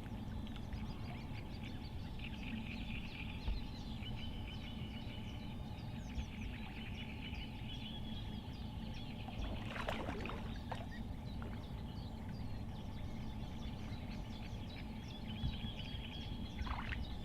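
Many small bird chirps and trills, with a steady low outdoor rumble beneath them and one brief sudden noise about ten seconds in.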